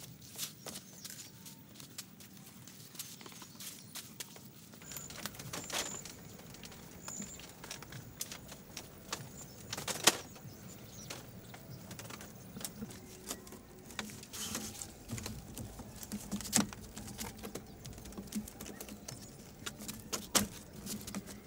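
Scattered light knocks and taps, with a sharper knock about ten seconds in and another near the end. A few brief high chirps sound around six seconds in.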